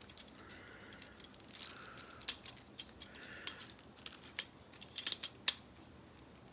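Plastic parts of a Transformers Robots in Disguise Warrior-class Soundwave figure clicking, snapping and sliding as it is transformed back into robot mode, with a run of sharper clicks in the second half.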